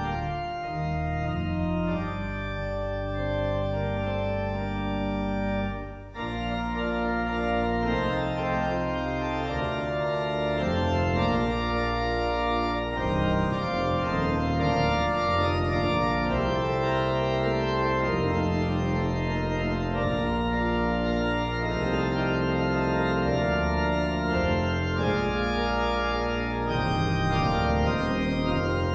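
Organ music: sustained chords over a moving bass line, with a brief dip between phrases about six seconds in.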